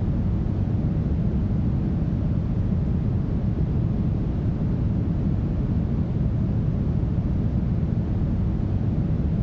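Smoothed brown noise: a steady, even, deep hiss, strongest in the bass and fading towards the treble, with no change in level.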